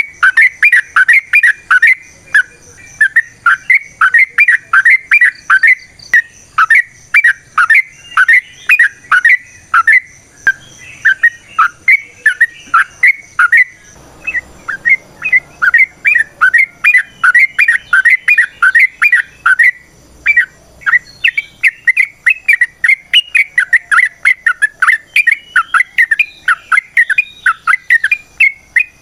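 Yellow-vented bulbul (trucukan) singing a long rapid run of short repeated notes, about four a second, with a short break about halfway.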